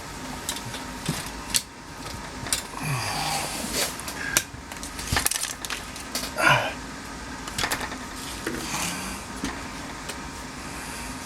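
Scattered small clicks, taps and short scrapes of metal and plastic parts being handled and fitted by hand while a turn signal switch goes into a steering column, over a faint steady hum.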